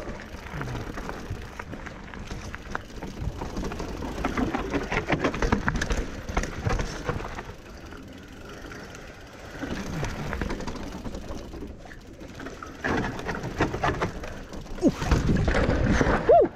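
Mountain bike riding down a dirt flow trail: tyres rolling over the dirt, with the chain and frame rattling over bumps. The noise swells louder around the middle and again near the end.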